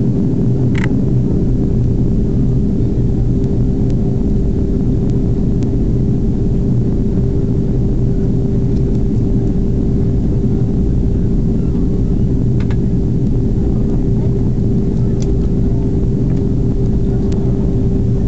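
Boeing 767-300 cabin noise heard from a window seat during the descent: a steady drone of engines and rushing airflow, with a constant hum running through it and a few faint ticks.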